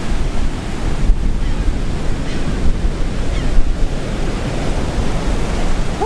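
Surf of a rough sea breaking in a steady wash of noise, with wind rumbling on the microphone.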